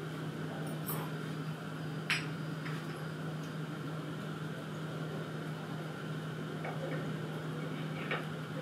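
Light clicks and clinks of the resin printer's build platform being handled and fitted onto the Z-axis arm, the sharpest about two seconds in and another near the end, over a steady low hum.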